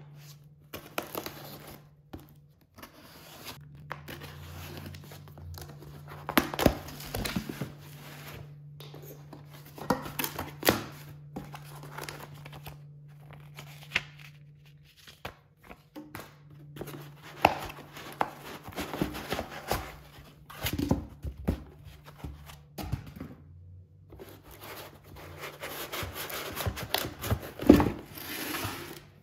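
A cardboard box being opened by hand: packing tape torn, flaps and packing handled in irregular bursts of crinkling rustles, scrapes and knocks. A faint steady low hum runs underneath much of it.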